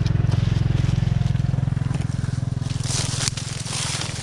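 Stihl MS170 two-stroke chainsaw running at low, steady revs, an even pulsing engine note, easing slightly about three seconds in. A brushing rustle of leaves and branches comes near the end.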